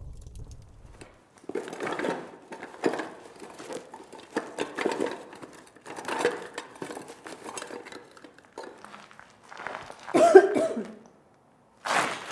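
People struggling at close quarters: harsh coughing, gasping and grunting in irregular bursts, with a louder strained vocal cry about ten seconds in.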